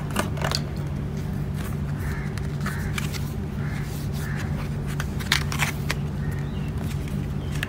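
Plastic packaging being handled: a silicone phone case in its plastic tray, giving a few sharp clicks near the start and again about five seconds in, with soft scraping between. A steady low hum runs underneath.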